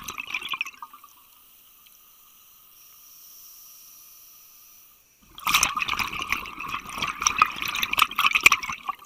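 Scuba diver's exhaled breath bubbling out of the regulator, heard underwater: a bubbly gurgle at the start, a quiet lull, then a longer burst of bubbling from about five seconds in.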